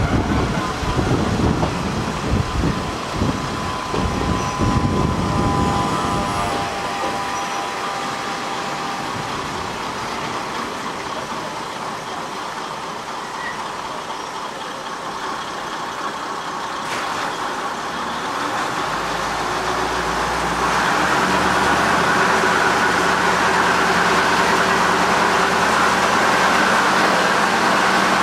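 KiHa 200 diesel railcar running with uneven low rumbling and knocks for the first few seconds, then a quieter steady stretch. About twenty seconds in, its diesel engine comes up to a loud, steady drone as it powers the car forward.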